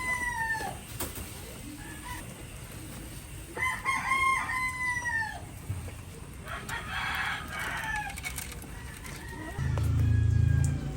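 A rooster crowing twice: a short crow at the start and a longer one about four seconds in, each dropping in pitch at the end. A scratchy noise follows around seven seconds, and a loud low droning sound comes in near the end.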